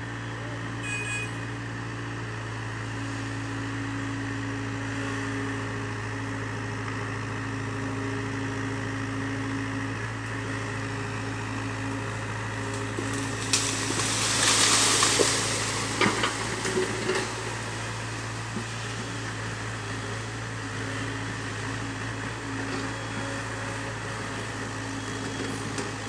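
Hyundai excavator's diesel engine running steadily. About halfway through, a loud rush of leaves and branches lasting a couple of seconds, then a few sharp snaps, as a tree is pushed over.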